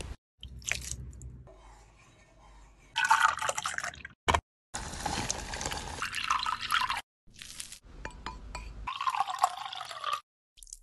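Close-up sounds of mandarin juice being squeezed out with a hand lever juicer, dripping, and then poured into a container, in several short pieces with abrupt silent gaps between them.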